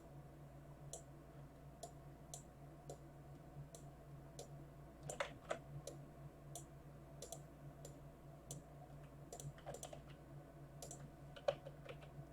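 Computer mouse clicking while drawing pixel art: scattered single clicks, roughly one a second, with a few louder ones around the middle and near the end, over a faint steady low hum.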